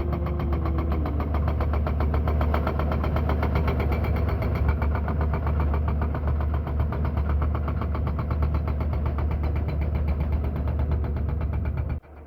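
JCB 215 excavator's hydraulic breaker hammering rock in rapid, even blows over the steady hum of the diesel engine. Both stop abruptly near the end.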